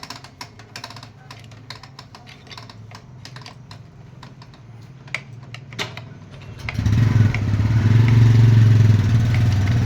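Quick metallic clicks of hand tools, then about seven seconds in a motorcycle engine starts running loudly and steadily, drowning them out.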